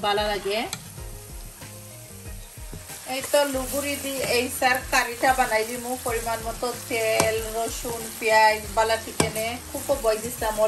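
Sliced onions frying in oil in a nonstick pan, sizzling while a metal spoon stirs and scrapes through them as they brown. The sound dips quieter about a second in and picks up again about three seconds in.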